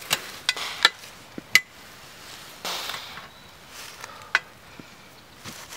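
A few sharp knocks and clanks from a wheeled metal game cart as a whitetail deer carcass is heaved onto it, with a brief rustle of dry leaves near the middle.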